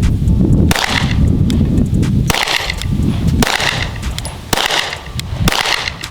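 Sig Sauer M18 9mm pistol firing 115-grain FMJ rounds: five shots, roughly one a second, each with a short echo.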